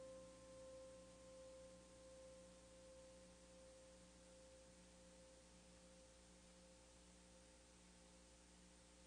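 Near silence, with a faint steady pure tone that slowly fades away.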